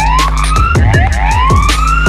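Fire truck sirens wailing: each sweep rises over about a second and then drops sharply, and two or more sirens overlap out of step. Under them is a steady engine drone, with frequent sharp clicks.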